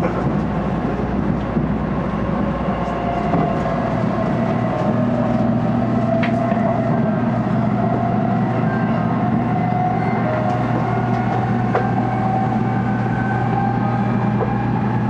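Tokaido Shinkansen N700A train running at speed, heard from the vestibule deck: a steady rumble of running noise with a whine that slowly rises in pitch.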